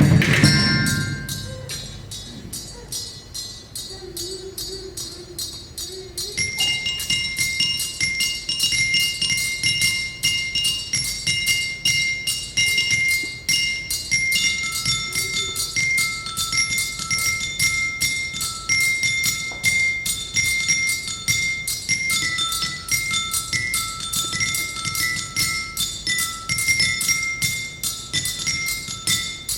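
Percussion ensemble music: a loud passage dies away at the start, then from about six seconds in, high-pitched mallet percussion plays fast, even repeated notes on a few pitches.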